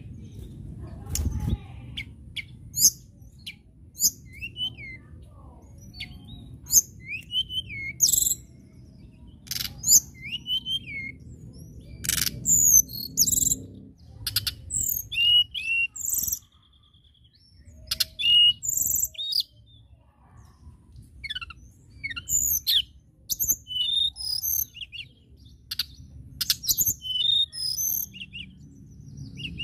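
Male blue flycatcher (tledekan) singing: phrases of short, high, clear whistled notes with quick rising and falling slurs, broken by a short pause about halfway through.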